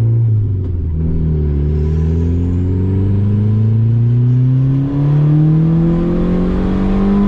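Turbocharged Honda D16 single-cam four-cylinder accelerating hard under boost: the revs drop briefly about a second in, then climb steadily and keep rising to near the end. It is a wide-open tuning pull onto VTEC, heard from inside the car.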